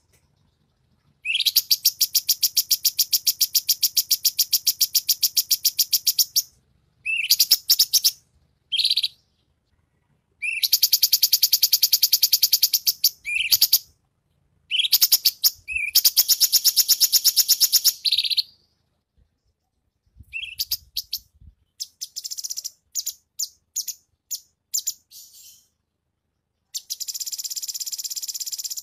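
Songbird master recording of cucak cungkok, cililin and kapas tembak song: long, high, very fast trills lasting several seconds each, broken by shorter chirped phrases and, past the middle, a choppy run of separate short notes.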